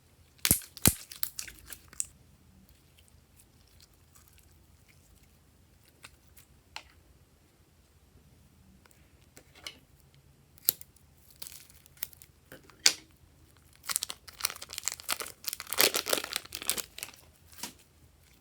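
Slime being worked by hand, with crackling, crinkling bursts in three spells: about half a second to two seconds in, again around eleven to thirteen seconds, and a longer, denser run from about fourteen seconds to near the end.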